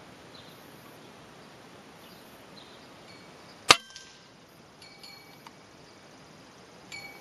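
Single shot from an Edgun Matador PCP air rifle: one sharp crack a little past halfway through.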